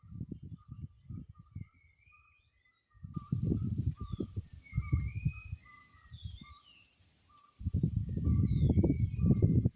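Several birds chirping and calling, one repeating a short note about twice a second, over spells of low rumbling noise that grow loudest in the last two seconds.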